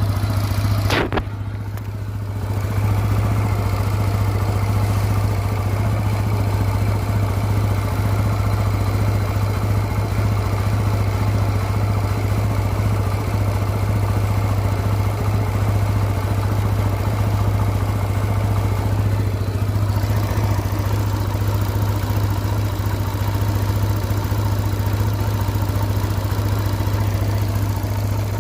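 A steady low machine hum, unchanging in pitch, with a brief dip about a second in.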